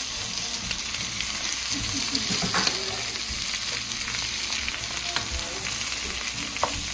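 Shrimp, vegetables and egg sizzling in a hot wok as they are stir-fried, with the spatula clicking against the pan now and then.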